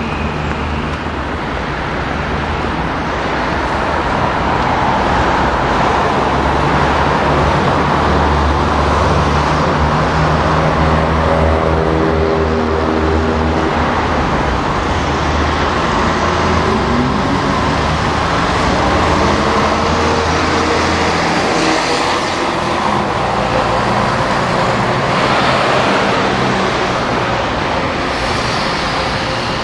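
City road traffic: vehicles running along the street in a continuous wash of noise, with a large engine's low hum standing out from about a quarter of the way in to about two-thirds, its pitch shifting and rising briefly in the middle.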